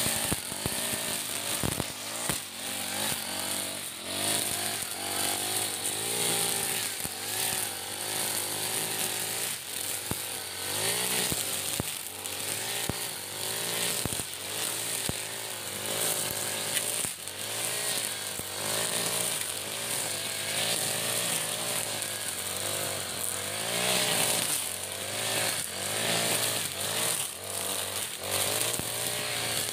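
iPower EH40 40cc four-stroke backpack brush cutter with a nylon line trimmer head, cutting grass and weeds. The engine pitch rises and falls over and over with the throttle.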